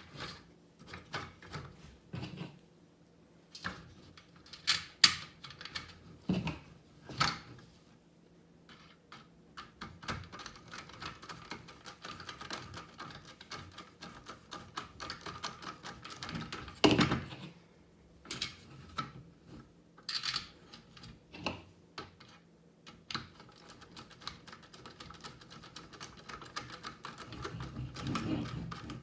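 Screws being driven by hand through small metal frame pieces into a 1970s TV tray cart's wheeled base: long runs of rapid small clicks, broken by a few sharper knocks of metal parts.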